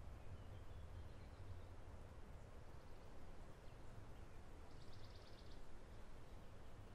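Quiet outdoor ambience: a steady low rumble with a few faint bird chirps, and a short rapid bird trill about five seconds in.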